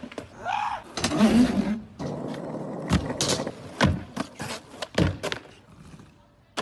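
Skateboard wheels rolling on concrete, broken by several sharp clacks and slaps of the board popping and landing on ledges and the ground.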